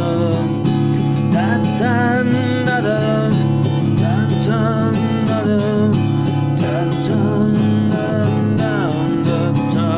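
Music with an acoustic guitar accompaniment under a slow melody line that wavers in pitch.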